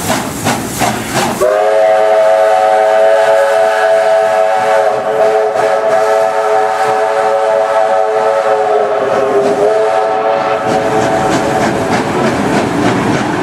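Steam locomotive 3642 working hard with a rapid exhaust chuff, then its steam whistle sounds one long blast of about nine seconds that sags slightly in pitch near the end, before the train's running noise takes over.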